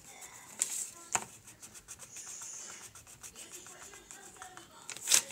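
Coloured pencil scratching and rubbing on notebook paper as a drawing is shaded in, with a few sharp knocks, the loudest near the end.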